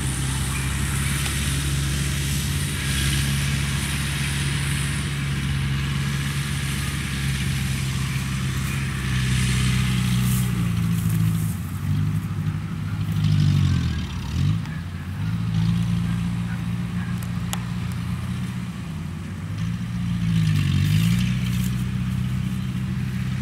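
Engine of a motorized rice-hauling cart running steadily under a load of rice sacks. Its pitch sags and recovers three times, near the middle and again toward the end.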